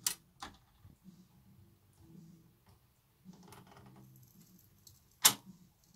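Philips GF 660 record player's autochanger cycling: faint mechanical clicks and rustling as the tone arm swings out over the record, with a sharp click at the start and a louder sharp click about five seconds in.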